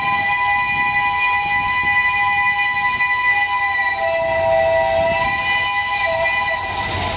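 Steam locomotive whistle blowing one long blast that sounds several notes at once, over the low rumble of the train, and cutting off near the end.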